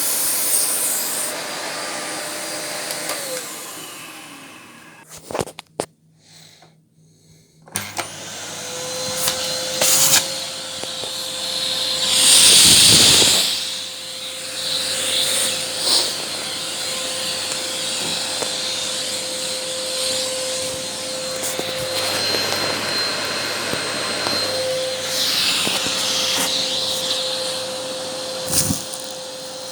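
Argos Simple Value vacuum cleaner running, then winding down to a stop a few seconds in. After a short quiet spell it starts again and runs steadily, with two loud rushing swells of air noise.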